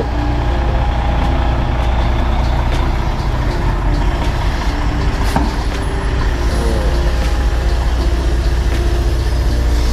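Semi-truck diesel engine running steadily with a low rumble, with a single sharp click about halfway through.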